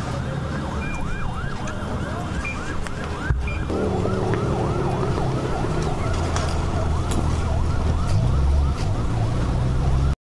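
Emergency-vehicle siren wailing in a fast yelp, rising and falling several times a second, over a low rumble. The rumble grows louder about three and a half seconds in, and the sound cuts off suddenly just before the end.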